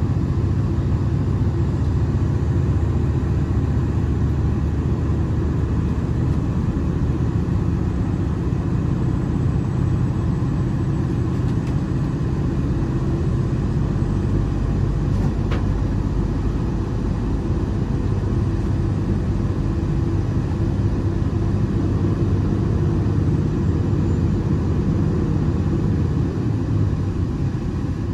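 Diesel limited express train running at speed: a steady low rumble of engines and wheels on the rails, with one faint click about halfway through.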